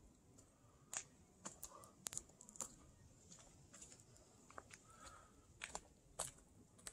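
Near silence broken by faint, irregular crunches and clicks, about a dozen of them, the sharpest about a second in and again near the end.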